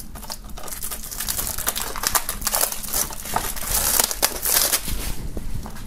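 Cellophane shrink-wrap crinkling and crackling as it is peeled off a plastic DVD case, the crackles thickest in the middle.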